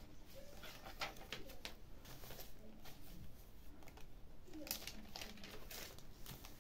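Pages of a handmade paper junk journal being turned and unfolded by hand: soft rustling and crinkling of paper, with a louder flurry of rustling about five seconds in.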